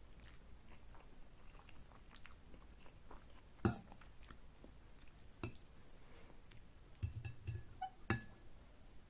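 Close-miked chewing of Korean noodles: soft wet mouth clicks and smacks, with a sharper one about a third of the way in and a cluster of them near the end.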